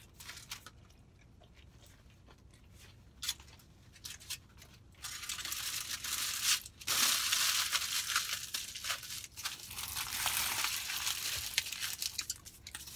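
A foil taco wrapper being crumpled and crinkled in the hands: a few light clicks, then, from about five seconds in, a long run of crackly rustling that stops just before the end.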